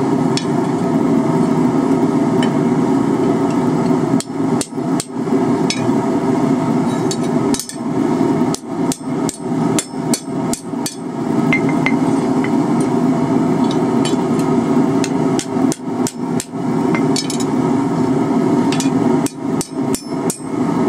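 Hand hammer striking a hot rebar holdfast on the anvil in several short runs of blows, adjusting the holdfast's pad, over a steady loud rushing noise.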